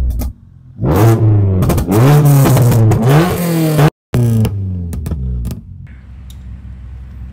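Modified Maruti Suzuki Baleno revving hard through a sports rally exhaust, two long revs with loud sharp pops and bangs from the exhaust, which is spitting flames. About six seconds in it gives way to a much quieter low rumble.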